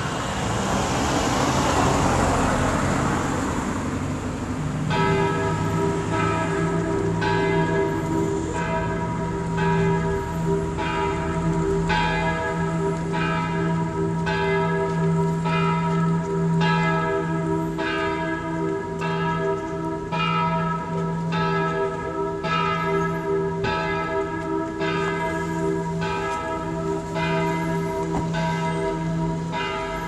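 The parish church's bells, cast by Oberascher in 1948, pealing together: several bells tuned c', e', g' and a' swing and strike over and over in overlapping strokes, their tones hanging on between strikes. The peal sets in about five seconds in, after a few seconds of rushing noise.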